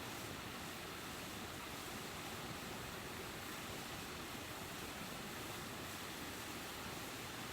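Steady, even hiss of outdoor ambient noise with no distinct events.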